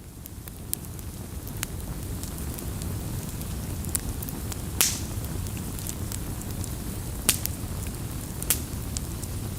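Campfire burning: a steady low rumble of flames fading in over the first couple of seconds, with sharp crackles and pops from the burning wood, the loudest pop about five seconds in.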